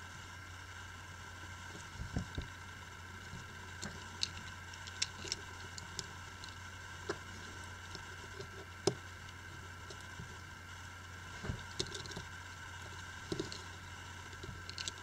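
Scattered small clicks and taps as fingers and tweezers handle a Sony Xperia Z1's replacement battery and flex cable in the opened phone frame, over a steady low hum.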